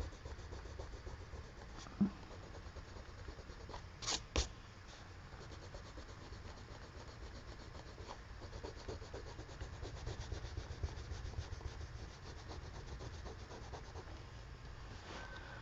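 Colored pencil rubbing across paper in quick repeated strokes, with a soft knock about two seconds in and two sharp clicks just after four seconds.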